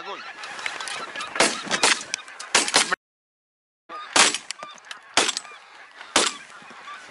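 A flock of wild geese honking overhead, many birds calling over one another, with several short, loud calls standing out. The sound cuts out for under a second about three seconds in.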